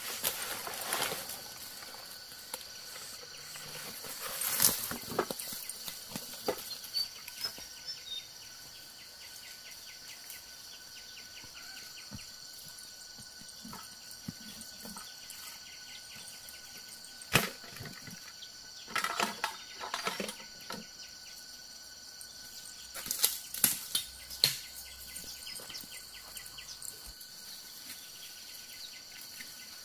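Footsteps crunching through dry bamboo leaf litter and brushing past undergrowth, in several short bursts, over a steady high drone of insects.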